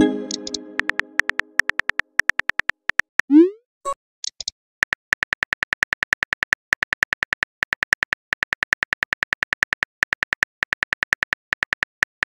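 Simulated phone-keyboard typing clicks from a texting app, a rapid, even run of ticks, broken about 3 s in by a rising swoosh as a message is sent and a couple of short blips. The typing clicks start again about 5 s in and run on steadily, with a ringing chime at the very start.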